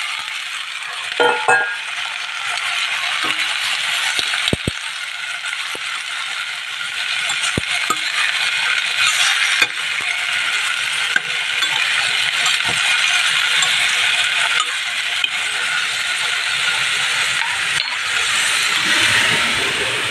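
Chopped green beans sizzling in a stainless steel kadhai in a steady hiss, while being stirred, with a few sharp clinks and knocks of a utensil against the pan.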